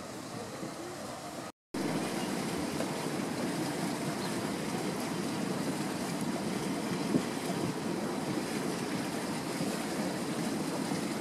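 Steady outdoor rushing noise like wind on the microphone, with no clear single source. It drops out for a split second about one and a half seconds in, then comes back louder.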